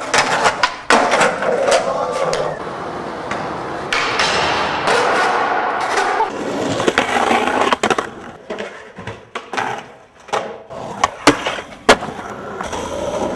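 Skateboard wheels rolling on concrete. A series of sharp wooden clacks follows, several close together in the second half, as the board is popped and lands.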